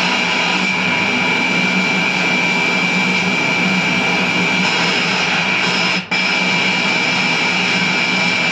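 FM radio static played through the audio board's speakers: a loud, steady hiss with a steady high tone in it, broken by a brief dropout about six seconds in.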